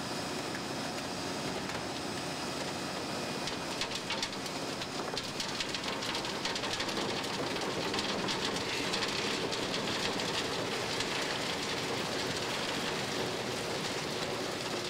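Wet gravel and water spilling out of the rear of a Mud Dog 1200 hydro excavator's debris body as the ejector plate pushes the load out. The stones make a rain-like patter that grows denser and a little louder from about four seconds in, over a steady hum from the truck.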